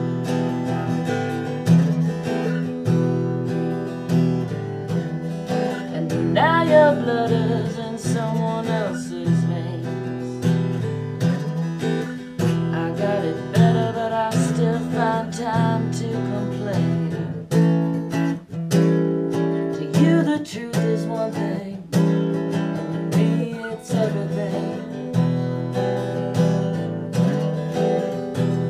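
Acoustic guitar strummed in a steady run of chords: a solo instrumental passage of an original song.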